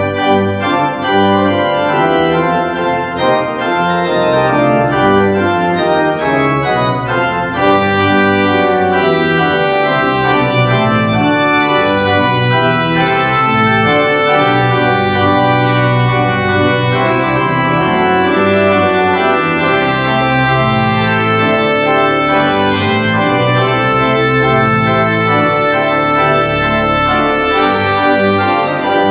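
Church organ playing full, sustained chords on the manuals with pedal bass, starting abruptly and held loud throughout.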